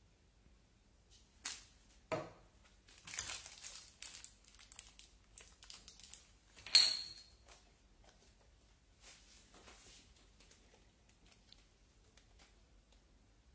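Plastic packaging being handled: a couple of clicks, a few seconds of crinkling, then a sharp snap about seven seconds in, the loudest sound, followed by softer rustling.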